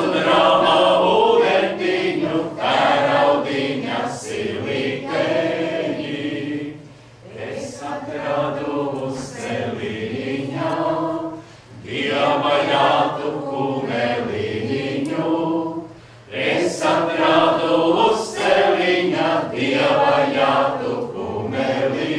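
A mixed group of men and women singing a Latvian song together, unaccompanied. The song goes in phrases of several seconds, with short breaks for breath about every four to five seconds.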